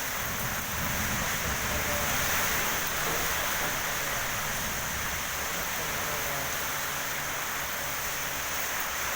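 Heavy rain in strong wind: a steady hiss of rainfall with an uneven low rumble of wind beneath it.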